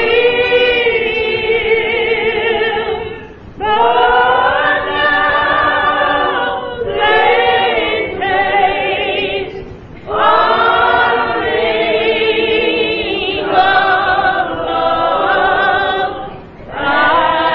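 Church choir singing a gospel song in long held phrases with vibrato, with short pauses between phrases.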